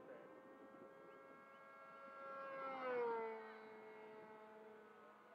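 Two-stroke glow engine of a radio-controlled model airplane flying past: a steady whine that grows louder, peaks about three seconds in and drops in pitch as the plane passes, then goes on fainter.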